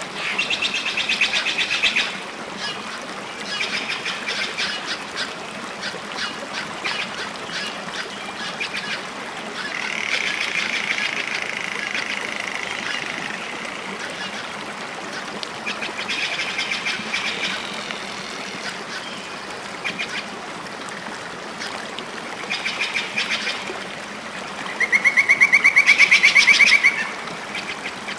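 High, bird-like animal calls in short pulsing bouts every few seconds, the loudest a rapid pulsing run near the end.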